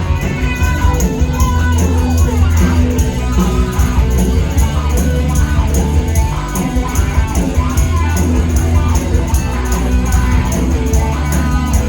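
Live rock band playing through a PA: electric guitars over heavy bass and drums, with a steady cymbal beat.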